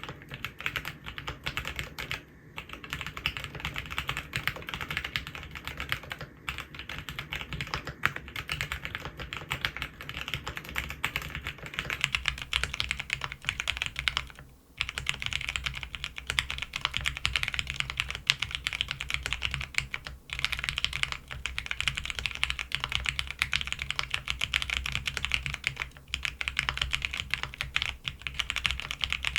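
Continuous fast typing on a custom mechanical keyboard with a polycarbonate half plate and lubed Cherry MX Vintage Brown tactile switches: a dense stream of key strokes, with a brief pause about halfway through and a couple of shorter breaks later.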